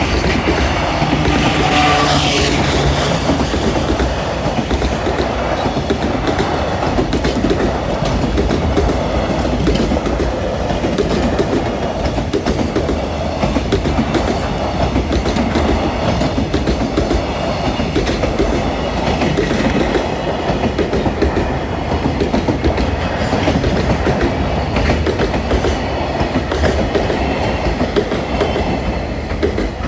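Two freight trains passing at once: an EF210 electric locomotive's train and the M250 Super Rail Cargo electric freight unit. Their wheels clatter continuously and loudly over the rail joints. A brief falling tone sounds about two seconds in.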